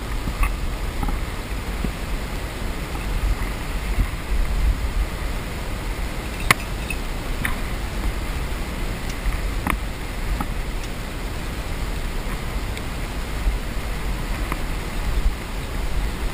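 Steady outdoor rushing noise with a strong low rumble, broken by a handful of sharp clicks, the loudest about six and a half seconds in.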